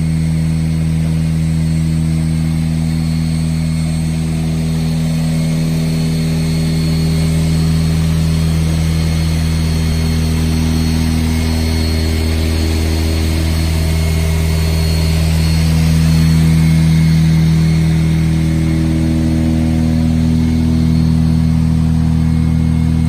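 High-speed double twist wire bunching machine running: a loud, steady low hum with a thin high whine above it, swelling a little about two-thirds of the way through.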